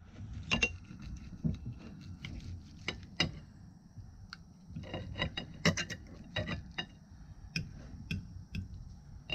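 Steak knife sawing through a grilled ribeye, with irregular clicks and scrapes of the knife and fork against the plate.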